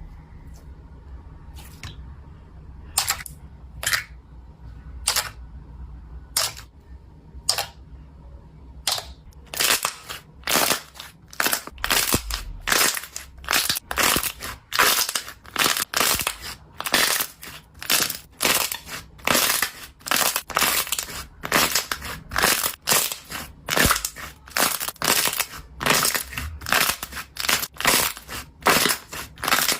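Foam slime squeezed and pressed by hand, making crunchy, crackly squishes. At first there are single presses about a second apart, then from about ten seconds in a quick, even run of about two a second.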